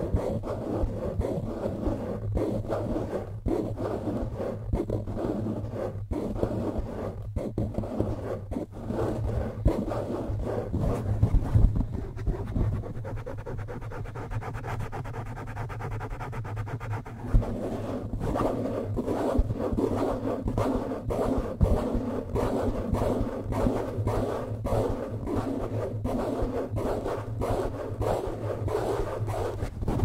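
Fingers scratching and rubbing a foam microphone windscreen held right against the mic: a rapid, continuous run of scratchy strokes over a steady low hum.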